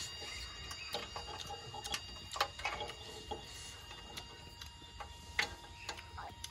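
Scattered, irregular clicks and crackles as a scorpion is roasted in the flame of a portable gas stove, held in metal tongs, over a faint steady background with thin high tones.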